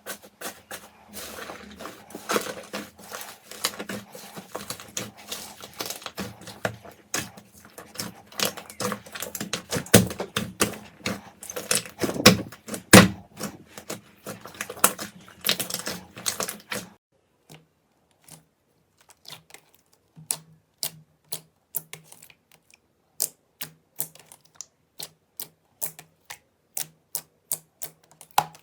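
Slime being squeezed and poked by hand, making a dense run of crackling clicks. About 17 seconds in the sound changes abruptly to slower, separate clicks.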